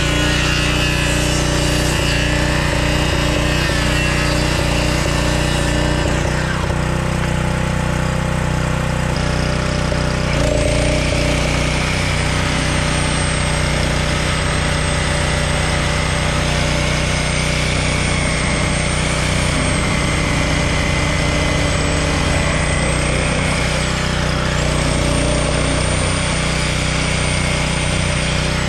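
A corded circular saw cutting wooden boards, followed from about ten seconds in by a corded reciprocating saw cutting through the boards with a steady whine and a fast chatter.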